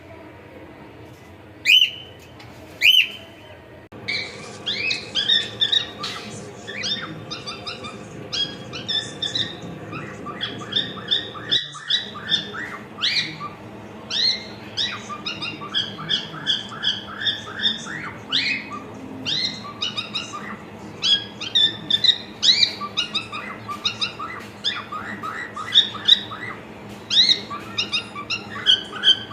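Cockatiel calling and chirping: two loud rising calls in the first few seconds, then a long run of quick, short rising chirps and whistles.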